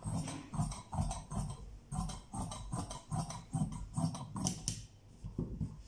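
Large steel tailor's shears cutting through fabric laid on a table, a steady run of snips about three a second with a short pause a little before the middle.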